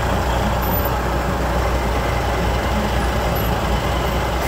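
Steady low rumble of a truck's engine idling, heard from inside the cab.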